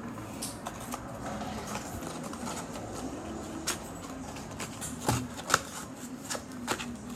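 Irregular light clicks and knocks of objects being handled, picked up and set down, with a few louder knocks about five seconds in.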